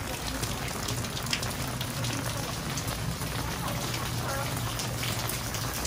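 Heavy rain falling on a paved alley: a steady hiss with many small drips and splashes.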